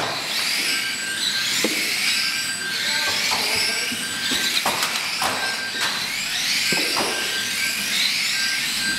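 A pack of 1/12th-scale electric radio-controlled stock cars racing on a carpet oval. The high whine of their motors rises and falls over and over as the cars pass. Scattered sharp knocks come as the cars hit one another and the track boards.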